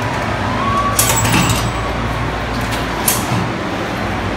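Shopping-mall interior ambience: a steady background noise of the open concourse, with a short clatter about a second in and a single sharp click about three seconds in.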